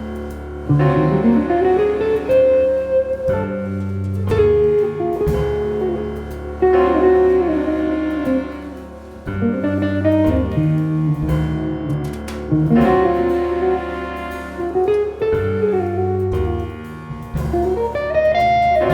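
Jazz ensemble playing a slow ballad: a melodic line that slides between notes over sustained chords and a low bass.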